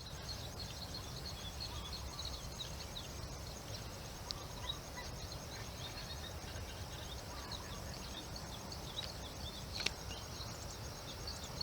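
Outdoor field ambience: many small birds chirping, faint and overlapping, over a steady high insect buzz and a low rumble. A single sharp click comes just before ten seconds in.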